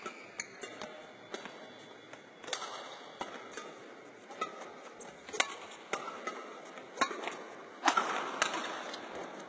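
Badminton racket striking the shuttlecock in practice rallies: a dozen or so sharp smacks at irregular intervals, the loudest about eight seconds in.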